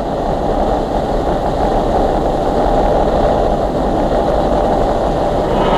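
Vincent Black Lightning's 998 cc V-twin engine running at speed, a steady loud drone.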